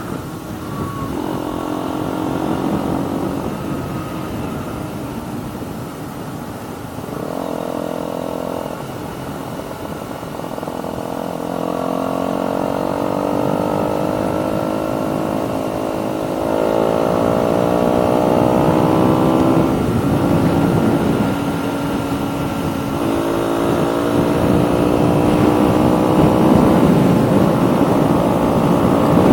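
KTM Duke 125's single-cylinder four-stroke engine, breathing through an aftermarket full exhaust system, pulling under load. The engine note rises in pitch again and again, dropping at each gear change as the bike works up through the gears, getting louder towards the end.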